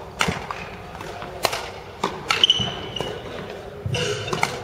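Badminton rally: several sharp racket strikes on the shuttlecock and footfalls on the court floor, with a shoe squeaking briefly about two and a half seconds in.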